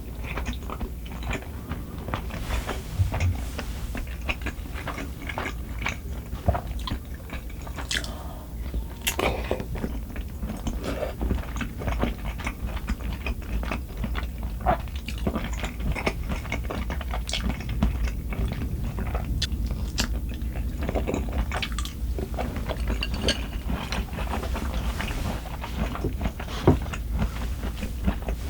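Close-miked eating sounds: a person chewing and biting food, with many irregular wet mouth clicks and smacks.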